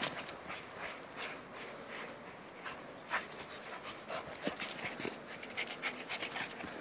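A dog panting, in short irregular breaths.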